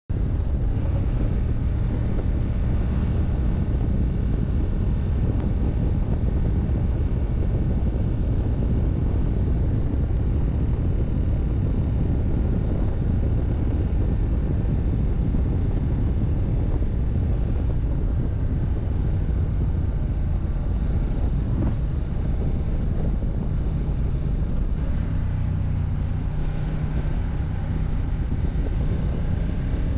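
Ducati Diavel 1260 S's V-twin engine running at road speed, with wind noise on the microphone. The engine note shifts in the last few seconds as the bike slows.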